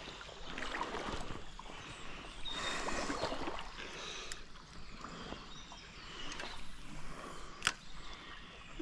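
River water sloshing and splashing in uneven swells, with a sharp click near the end.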